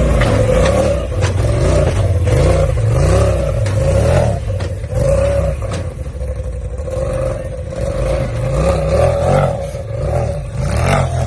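Off-road vehicle's engine revving up and down over and over under load, with scattered knocks and clattering from the vehicle working over rough ground.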